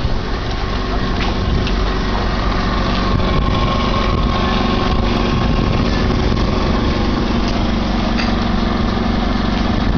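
A motor running steadily, with a hum that sets in about a second in and eases off near the end.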